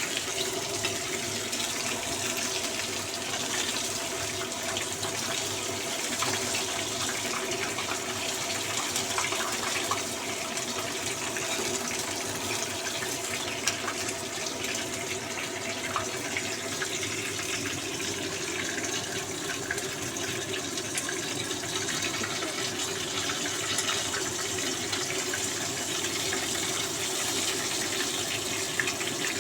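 Water running steadily, as from a kitchen tap.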